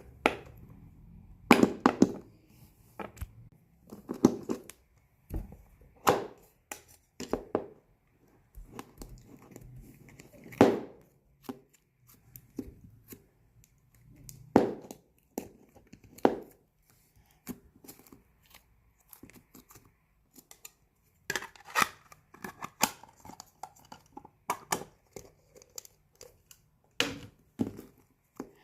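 Packaging being torn open and handled: irregular rips, crinkles and sharp taps, one after another.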